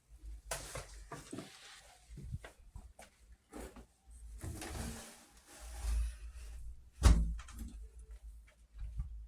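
Irregular kitchen handling sounds, scrapes and rustles at a pot of frying oil, with one sharp knock about seven seconds in.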